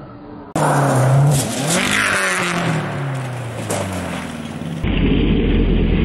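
Rally car engines: one car's engine at high revs with its pitch falling steadily over about four seconds, then, after an abrupt cut near the end, another rally car's engine running hard as it slides sideways through a dusty bend.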